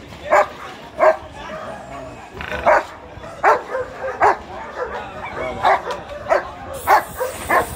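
German shepherd in a wire basket muzzle barking over and over, about three barks every two seconds.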